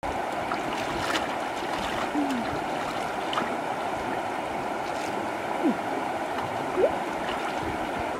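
Steady rush of river water, with a few short gurgles.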